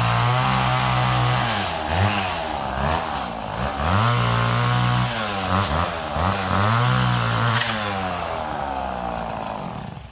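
Vintage two-stroke chainsaw running at high revs, its pitch dipping and climbing back several times as it works. The engine winds down over the last couple of seconds and cuts off near the end.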